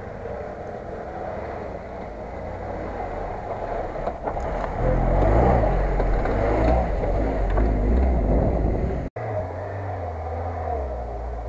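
Lada Niva's four-cylinder engine running as the car drives over rough grassland, revving harder in the middle. The sound breaks off sharply for an instant about nine seconds in.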